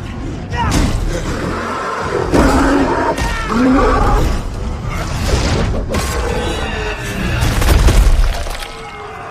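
Film battle sound mix: music under repeated crashes, shattering and heavy impacts. A deep boom, the loudest moment, comes near the end before the level drops.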